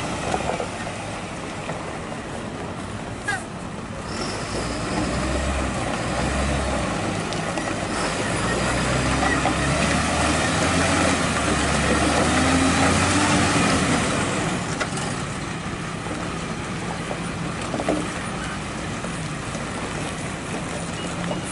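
UD Quester tanker truck's diesel engine running under load as the truck crawls through slick mud, with a steady low drone that grows louder about a third of the way in and eases off again near the end.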